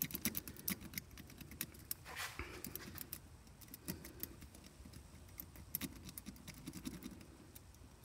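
City rake lock pick scrubbing back and forth over the pin stacks of a Master Lock M15 padlock under tension: quick metallic clicking and scratching, dense for the first few seconds, then sparser.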